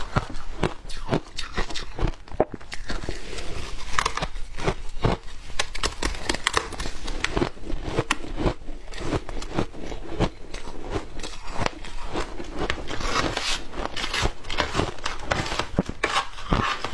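Shaved ice being crunched and chewed up close, with a metal spoon scooping and scraping the ice in a plastic tub: many sharp crunches at an uneven pace.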